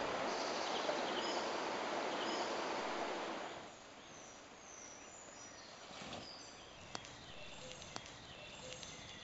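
Flowing river water with small birds chirping over it. The water sound stops abruptly about three and a half seconds in, leaving birdsong in a quiet forest with two sharp clicks near the end.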